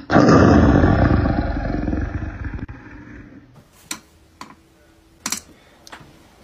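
A loud, rough roar that fades away over about three and a half seconds, followed by a few faint clicks.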